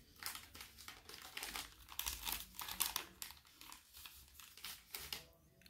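Plastic wet-wipe packet being handled and opened, crinkling and crackling irregularly, quieter near the end.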